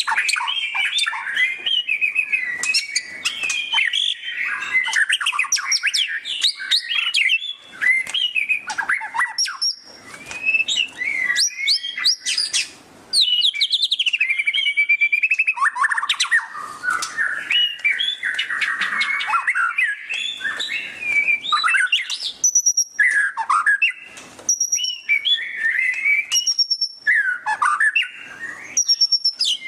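White-rumped shama (murai batu) singing nonstop in the loud, fast chattering 'ngeriwik' style: quick runs of sweeping, trilling notes mixed with clear whistles, and a string of short, high repeated notes in the latter part.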